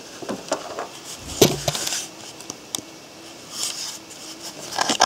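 Handling noises: a string of knocks and light clinks, the loudest a dull thud about one and a half seconds in, with rustling near the end.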